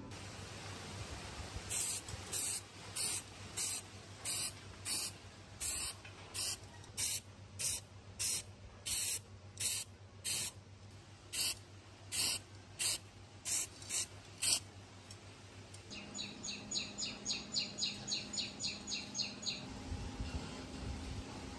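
Aerosol spray-paint can sprayed in a series of short, evenly spaced hissing bursts, about one and a half a second, onto metal motor housing parts. A quick run of light rattles follows near the end.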